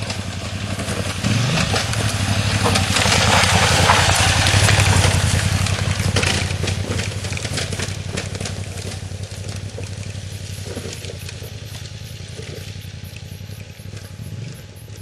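KTM off-road motorcycle engine running on a dirt track, its pitch rising briefly about a second in; it grows louder, peaks about four to five seconds in, then slowly fades as the bike moves away.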